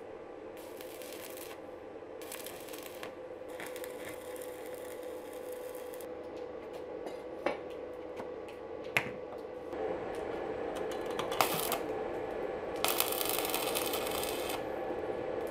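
Stick (arc) welding in short bursts: the electrode's arc crackles and hisses for a second or two at a time as steel strip is tack-welded into a ring, over a steady hum. A few sharp metal clicks come around the middle.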